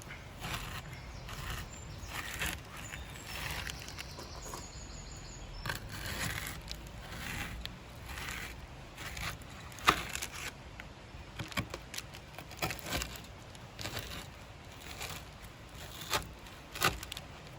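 Knife cutting through a set slab of dark chocolate and puffed rice on a chopping board: irregular crunching and crackling with sharp clicks, the loudest about ten seconds in.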